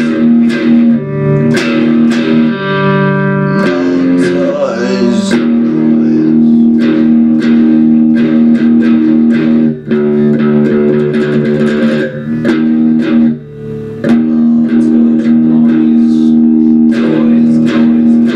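Electric guitar playing a rock riff of sustained chords with steady picking, dropping out briefly about ten seconds in and again around thirteen seconds in.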